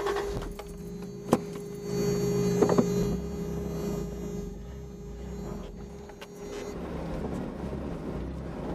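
Pickup truck engine running low, heard from inside the cab, with a steady hum over it. There are two short knocks, about a second and nearly three seconds in.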